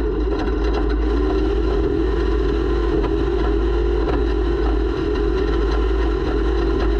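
Off-road race vehicle's engine running with a steady drone, recorded by a camera mounted on the vehicle.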